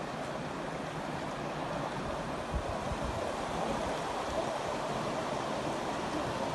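The Kabul River in flood, its fast, churning water rushing with a steady, even noise. A couple of brief low bumps come about two and a half seconds in.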